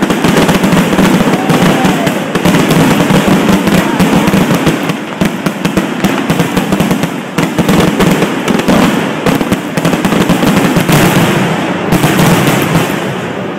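Fireworks finale: a dense, continuous barrage of bursts, the bangs running together with almost no gaps. The barrage eases slightly near the end.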